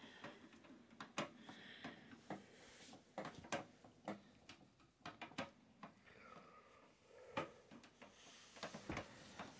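Faint, irregular clicks and knocks of computer parts and the metal PC case being handled during disassembly.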